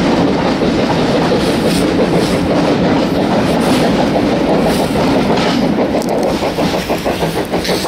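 Coaches of a steam-hauled train running close by, a steady loud rumble with the wheels clicking over rail joints. The clicks become a distinct regular rhythm in the last couple of seconds as the train draws away.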